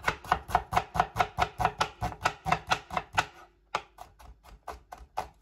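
Chef's knife slicing red onion on a wooden chopping board: quick, even knife strikes about five a second, slowing to a few scattered cuts after about three seconds.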